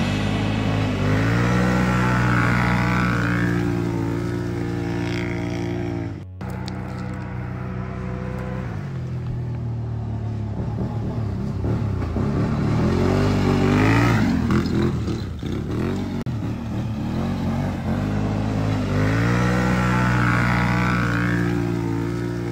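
Quad ATV engine revving up and holding high revs under load on a steep dirt climb, easing off and revving up again a couple of times. It cuts out briefly about six seconds in.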